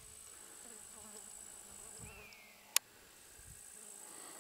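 Insects chirring in summer meadow grass, a thin, high, steady tone. About two seconds in there is a short squeak that falls in pitch, and a single sharp click right after it.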